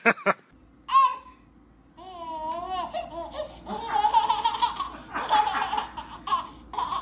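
A few short, loud sounds in the first second, then a baby laughing in a long run of giggles from about two seconds in.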